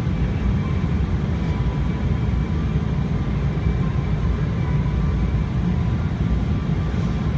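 Steady low rumble of a Boeing 777's engines and airflow heard inside the passenger cabin on approach to landing, with the landing gear extended.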